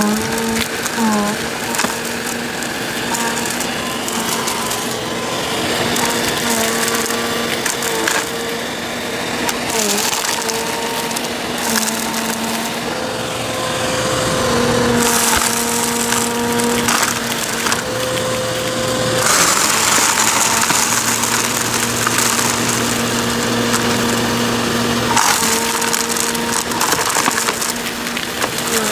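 Bissell CleanView vacuum running with a steady motor whine, crackling and rattling as it sucks up crunchy debris. The whine dips briefly in pitch a few times.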